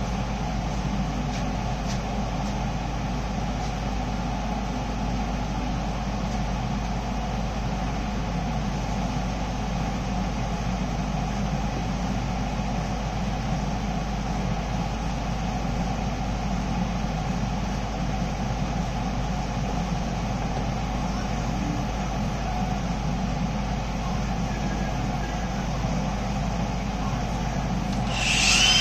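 Steady low machine drone of background shop noise with no change. About half a second before the end, an angle grinder starts up with a loud high whine.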